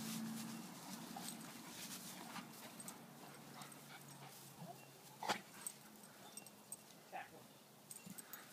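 Two dogs play-wrestling, with short whimpers and scuffling. A low steady hum fades out in the first second, and a sharp click comes about five seconds in.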